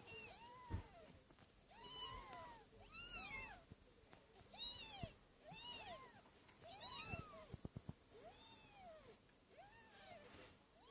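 One-week-old kittens mewing: about eight thin, high calls, each rising then falling in pitch, roughly one a second. A quick run of small clicks comes about three-quarters of the way through.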